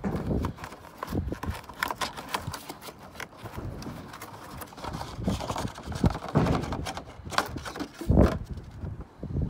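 Irregular knocks, taps and rustling as a cardboard FRAM air-filter box is handled and the new air filter is pulled out of it, with a couple of louder thumps near the end.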